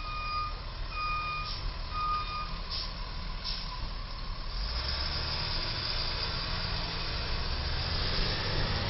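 Box truck's reversing alarm giving three evenly spaced beeps, about one a second, then stopping. A few faint short hisses follow, and from about halfway the truck's engine noise builds as it pulls away.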